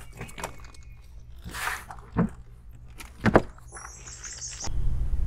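Knocks and thumps of gear being handled in a small aluminum fishing boat, the loudest about three seconds in, with a brief run of high chirps. A steady low hum starts suddenly near the end.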